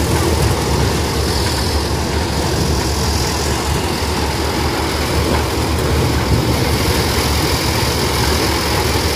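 Tractor-driven maize sheller running steadily under load as cobs are fed in: a loud, continuous low mechanical noise of the tractor engine and the threshing drum churning the cobs.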